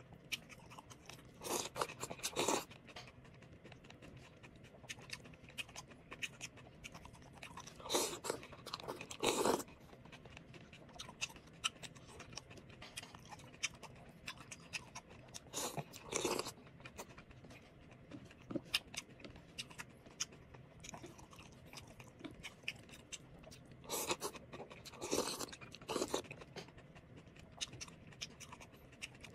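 Noodle soup being eaten close to the microphone: mouth noises of chewing with small clicks, and four louder bursts of slurping noodles, each about a second long.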